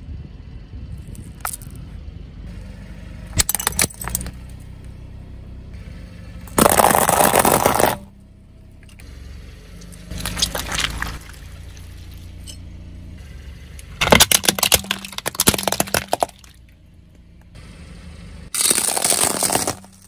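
A car tyre rolling slowly over small objects and crushing them, with several loud bursts of cracking and crunching plastic and splintering, over the low running hum of the car.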